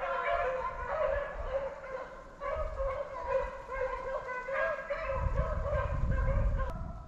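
A pack of beagles baying in long, overlapping howls while running a rabbit's trail. The baying fades out near the end, with a low rumble underneath over the last two seconds.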